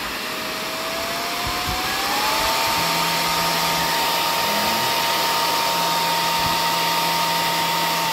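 Delta PFC1212DE 12 V 4.8 A brushless fan spinning up under its speed controller: the blade whine rises in pitch over the first two seconds or so, then holds steady at high speed with a loud rush of air. The fan's speed follows the controller normally.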